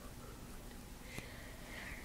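Quiet room tone with a faint hiss and a single soft click a little over a second in.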